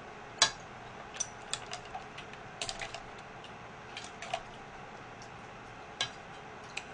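Metal ladle clinking against a stainless steel pan and mussel shells as mussels and broth are scooped up: a scatter of short, sharp clinks, the loudest about half a second in and another clear one about six seconds in.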